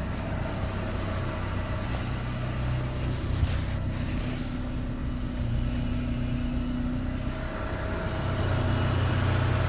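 Renault power steering pump whining and hissing over the idling engine as the steering wheel is turned, a second tone rising in about four seconds in and a high hiss swelling near the end. The noise appeared after the pump's shaft seal was replaced and three of its vanes, which had fallen out, were refitted.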